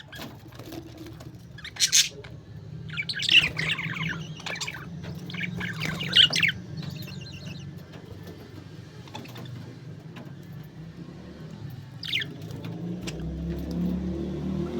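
Parakeets chattering and chirping: a sharp call, then two bursts of rapid chatter, and another short call near the end, over a steady low hum.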